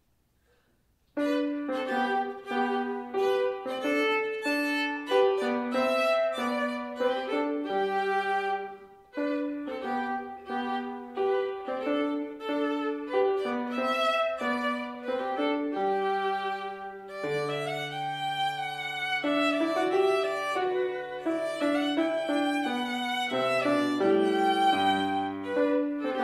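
Viola and piano playing a slow melodic piece, starting about a second in.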